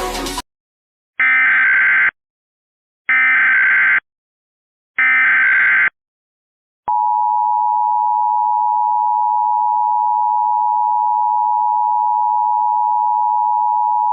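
Emergency Alert System Amber Alert header: three short bursts of SAME digital data tones, each about a second long and about two seconds apart. About seven seconds in, the steady two-tone EAS attention signal starts and holds.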